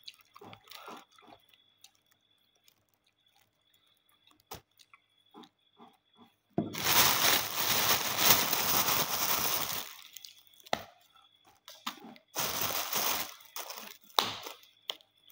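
Fresh fava bean pods being split and peeled by hand, giving small scattered snaps and clicks. A plastic bag crinkles loudly for about three seconds midway as a hand rummages through the pile of pods, and briefly again near the end.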